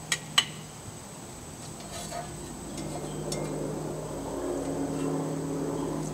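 Metal tongs clinking against a plate and the grill grate as meat is moved from grill to plate: two sharp, ringing clinks about a third of a second apart at the start, then a few lighter taps, over a steady low hum.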